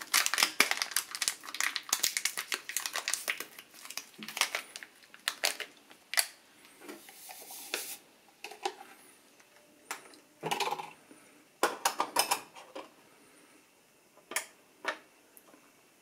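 Foil sachet of cappuccino mix being torn open and crinkled, then the powder poured into a ceramic mug with a short hiss. A few scattered knocks follow as the mug is handled.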